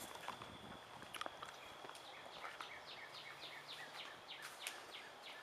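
A songbird singing a quick run of repeated down-slurred whistled notes, about three a second, from about two seconds in, over quiet outdoor background with a thin steady high tone that stops as the song begins.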